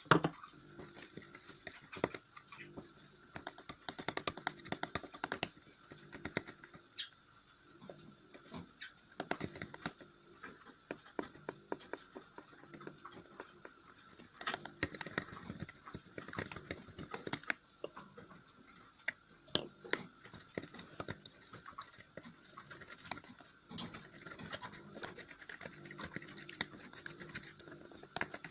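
Homemade slime being mixed and worked by hand, giving a run of small, irregular sticky clicks and soft pattering taps.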